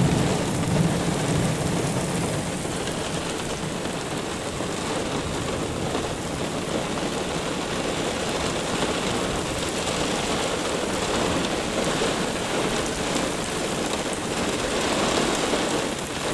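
Heavy thunderstorm rain pouring steadily onto pavement as a squall line passes over, with a low rumble of thunder in the first few seconds.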